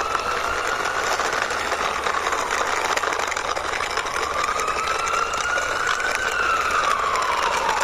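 Toy ambulance pushed along by hand: a steady whir with a high tone that slowly rises, falls and rises again, over a light rattle of its wheels.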